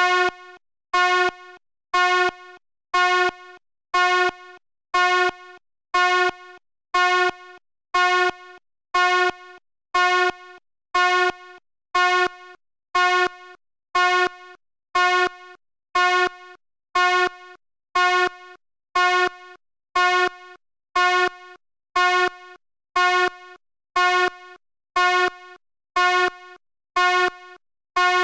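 Fire alarm sounding a buzzy electronic beep about once a second, repeating steadily; each short beep is followed by a brief fainter tail.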